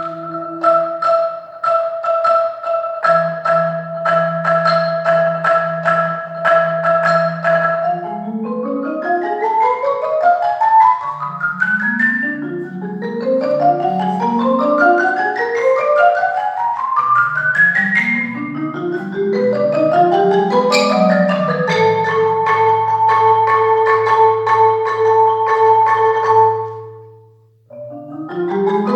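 Marimba playing rolled chords (fast repeated mallet strikes), then a string of rising arpeggio runs sweeping up from the low register. It settles into another held roll that breaks off shortly before the end, and a new phrase begins.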